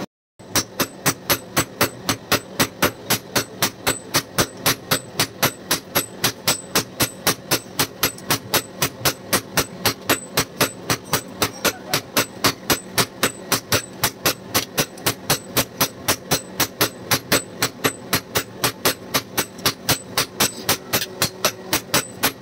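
Hand hammer forging a red-hot steel knife blade on an anvil: a steady run of even hammer blows, about three a second.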